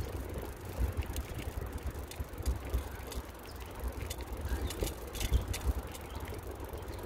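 Wind rumbling on the microphone of a bicycle rolling along an asphalt path, with scattered light clicks and rattles from the bike, thickest in the middle.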